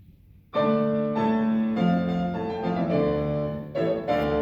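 Classical piano accompaniment starting about half a second in: a phrase of sustained chords with a new attack every half second or so.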